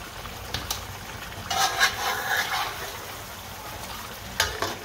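Metal spoon stirring and scraping through fish curry in a large metal pot as it bubbles and fries down in its masala, with a sharp clink of the spoon against the pot near the end.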